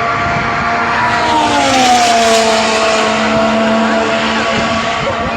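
Fighter jet flying past in an air display: loud engine noise with a whine that slides down in pitch about a second in as the aircraft passes.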